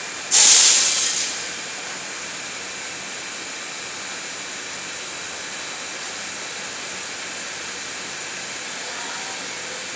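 A sudden sharp hiss of released air, like a pneumatic valve venting, fading away over about a second, over the steady hiss of the glass bending furnace line's machinery.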